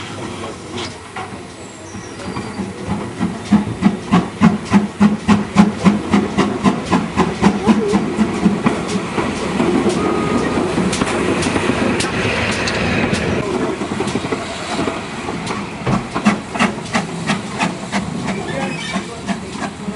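GWR steam locomotives, among them Large Prairie tank 4160, rolling slowly past close by. The wheels and running gear clack rhythmically about twice a second, with a steady steam hiss around the middle.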